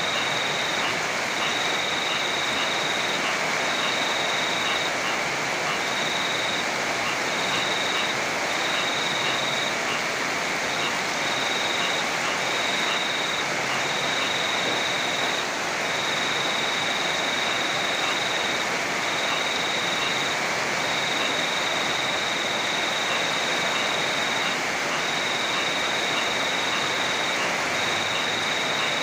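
Heavy rain falling steadily, a constant dense hiss. Over it a thin high-pitched trill keeps starting and stopping, in pulses of about a second.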